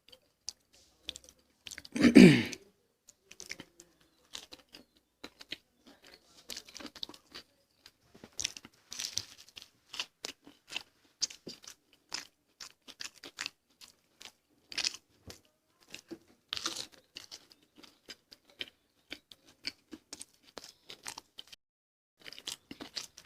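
Close-up chewing of a fried potato pakora: many short, irregular crunches and wet mouth sounds, with one louder mouth sound about two seconds in.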